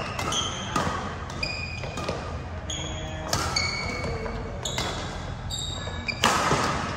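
Court shoes squeaking and stepping on a badminton court mat during quick footwork: a string of short, sharp squeaks at shifting pitches, several a second, mixed with landing thuds, the heaviest landing about six seconds in.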